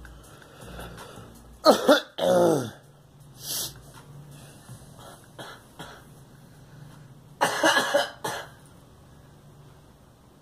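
A girl coughing in bouts: two harsh coughs about two seconds in that end in a voiced sound falling in pitch, a single cough a little later, then another quick run of coughs near the end.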